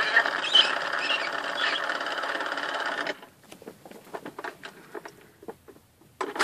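Mattel See 'n Say 'The Farmer Says' toy running after a pull of its lever, its spring-driven mechanism whirring as it plays back an animal sound. The playback stops about three seconds in and is followed by faint clicks of the toy being handled.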